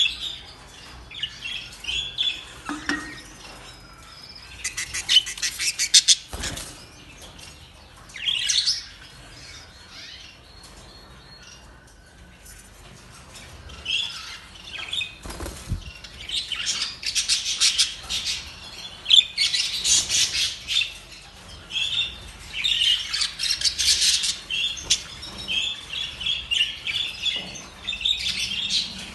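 Pet budgerigars chirping and chattering in spells of quick warbling chirps, with a couple of brief thumps about 6 and 16 seconds in.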